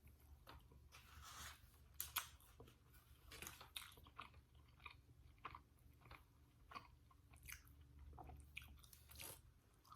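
Close-miked chewing of burrito and Doritos, with soft crunches, wet mouth clicks and smacks.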